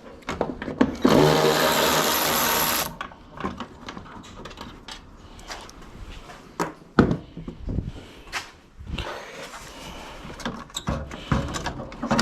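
A cordless power driver runs steadily for about two seconds, spinning out a 10 mm headlight bolt, followed by scattered clicks and knocks of metal parts and tools being handled.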